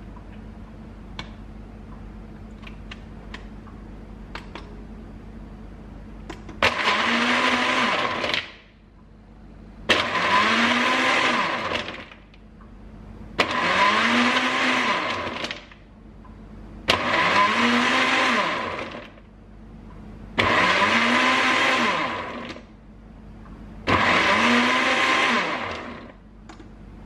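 SMEG blender run in six pulses, each about two seconds long, the motor spinning up and winding back down each time, blending an avocado smoothie with ice. A few faint clicks come before the first pulse.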